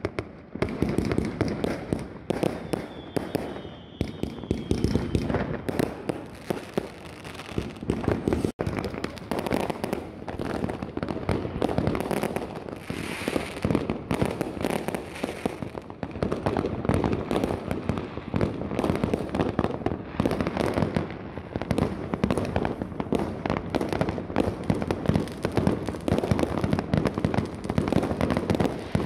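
Fireworks going off all around in a dense, unbroken barrage of bangs and crackling, many launches overlapping with no let-up.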